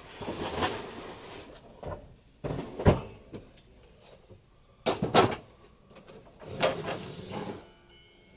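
Vintage Klein metal toolbox being handled and opened: scraping of metal parts, with a sharp clank about three seconds in and two quick clanks just after five seconds.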